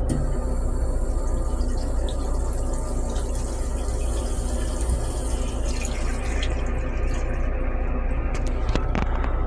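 Stainless steel railcar toilet flushing: water rushes around the bowl and carries the paper away, easing off about two thirds of the way through. A steady low rumble runs underneath.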